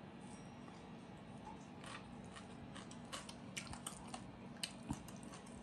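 Chewing and mouth sounds of someone eating rice and fish paste with the fingers, with short sharp clicks of fingers and food against the plate, coming thickest between about three and five seconds in.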